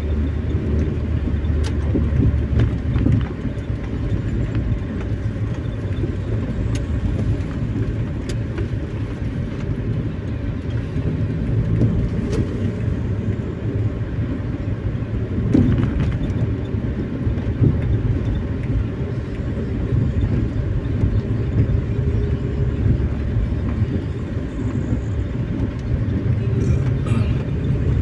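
Steady low road-and-engine rumble heard from inside a moving vehicle's cabin, with a few faint clicks.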